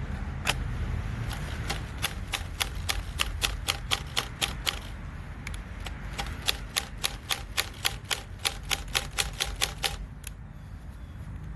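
Rapid ratcheting clicks, about three to four a second with a short pause midway, as the keyless chuck of a Makita XPH07 brushless hammer drill is twisted by hand, its battery removed, over a steady low rumble.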